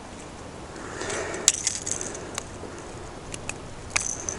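A handful of sharp, separate metallic clicks and clinks from fishing tackle being handled, such as lure hooks and the reel, with a soft rustle just before them.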